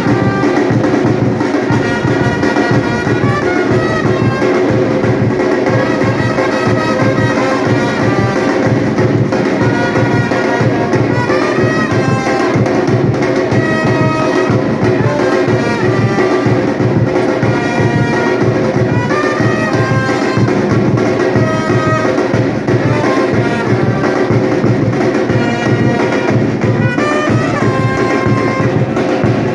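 Batucada drum ensemble playing a fast, driving beat, with a brass melody over the drums.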